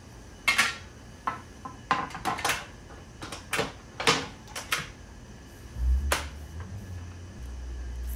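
Handling clicks and clacks on an e-bike's frame, with a small key worked in the frame's key lock: about seven sharp knocks spread over the first five seconds. A low hum comes in near the end.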